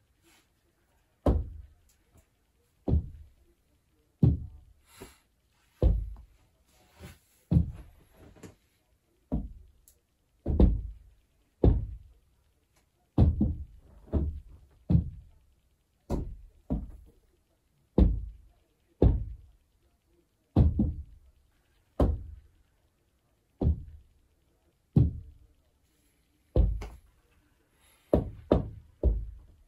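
Heavy knocking thuds, over twenty of them, loud and sharp, each dying away quickly. They come unevenly about a second apart and bunch together near the end. The uploader presents them as paranormal rapping in a haunted flat.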